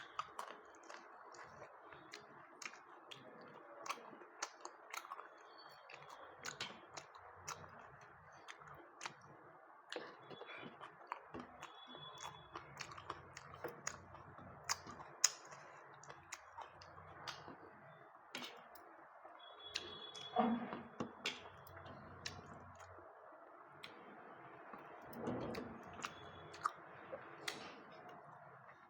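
A person chewing and eating goat lung curry with roti, with many short wet mouth clicks and smacks scattered throughout and a couple of louder knocks.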